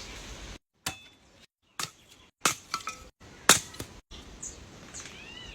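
A series of sharp clinks and knocks, about eight in all, some with a short ringing tone, separated by brief gaps of silence.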